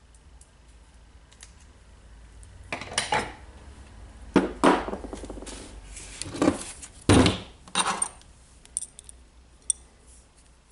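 A cordless drill being handled on a wooden surface: a series of knocks and clatters as the drill is picked up, turned over and set down, the loudest about four and a half and seven seconds in. These are followed by a few light clicks as a small part is handled at the base of the drill.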